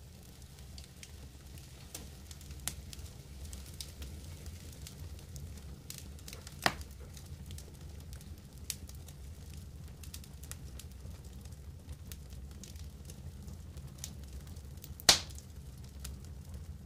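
Wood campfire crackling with scattered small pops over a low steady rumble, while a plastic bag of marinated pork is handled. Two sharp knocks stand out, one about a third of the way in and a louder one near the end.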